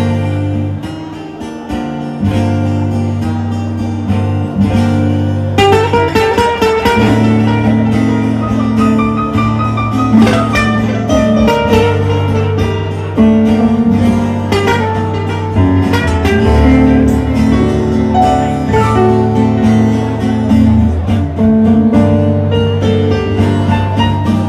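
Live instrumental introduction to a gaúcho song: a picked acoustic guitar melody over sustained low keyboard chords. It opens sparser, and the melody fills out about five seconds in.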